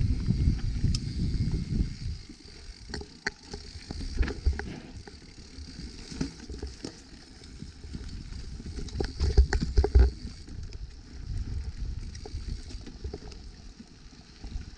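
An Evil Insurgent full-suspension mountain bike riding a trail: its tyres run over the dirt and it rattles and knocks in quick irregular clicks over the bumps. Wind rumbles on the microphone, heaviest at the start and again about nine to ten seconds in.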